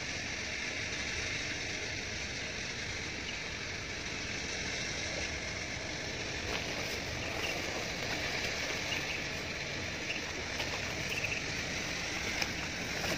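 Steady insect chirring over an even outdoor hiss, with faint small ticks, drips and rustles from about six seconds in as a wet cast net is hauled out of a pond.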